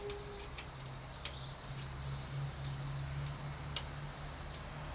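A handful of light, sharp ticks at irregular intervals as a steel bicycle gear cable is fed through the frame's cable guides and housing, over a steady low hum.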